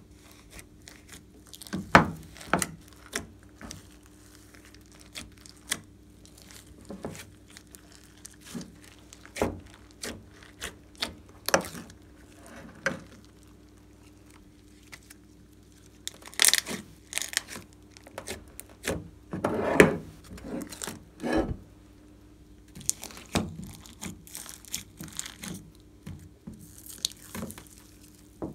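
Hands squishing, pressing and stretching glossy slime studded with sequins and beads, giving irregular wet pops, crackles and squelches, with a denser run of them about two-thirds of the way through.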